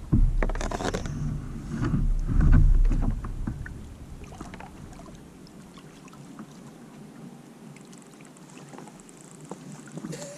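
Water splashing and sloshing around a kayak, with wind buffeting the microphone. Loudest in the first three seconds or so, then settling to quieter lapping.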